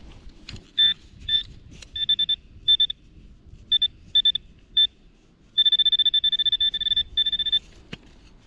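Metal detector beeping on a buried metal target: short high beeps in a few bursts, then a fast unbroken run of beeps lasting about two seconds.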